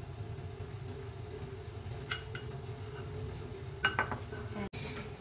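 Light clinks and knocks of a small non-stick frying pan against a ceramic dish and the gas burner's metal grate. The loudest knocks come about four seconds in, as the pan is set down on the grate, over a steady low hum.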